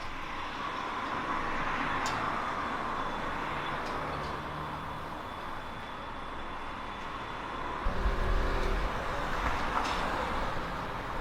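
Street traffic noise, with a vehicle engine passing louder about eight seconds in.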